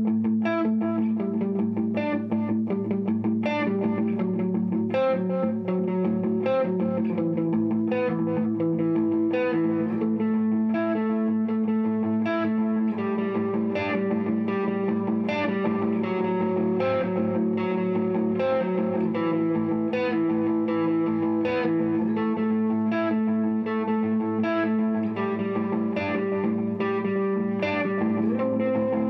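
Background music: a guitar-led instrumental with evenly repeating plucked notes over sustained lower tones.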